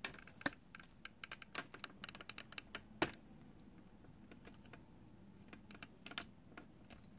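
Light clicks and taps of something being handled, quick and irregular for the first three seconds with a sharper click about three seconds in, then a few scattered clicks about six seconds in.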